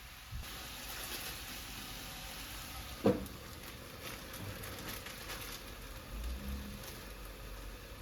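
Food sizzling and crackling as it fries in a pan, with one sharp clank about three seconds in, the loudest sound here.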